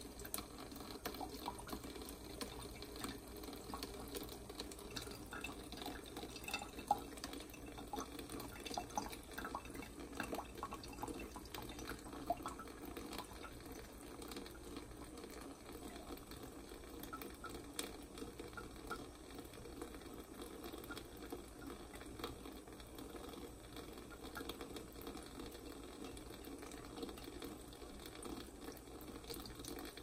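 Thin stream of water running steadily from a kitchen faucet into a stainless steel sink, with faint scattered ticks and splashes from a cat lapping at the stream.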